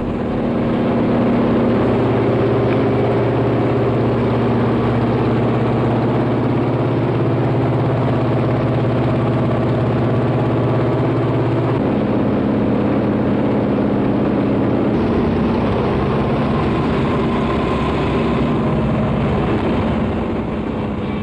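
Propeller aircraft engines droning steadily, heard from inside the cabin of a jump plane. The pitch of the drone shifts slightly about twelve seconds in.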